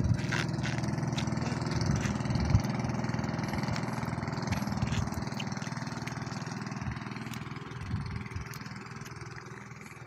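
Pumpboat (motorized outrigger boat) engine running steadily, slowly fading as the boat moves off.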